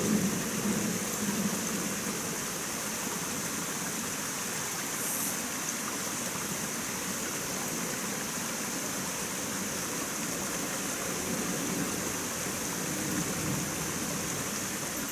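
Small mountain stream flowing over rocks, a steady rush of water.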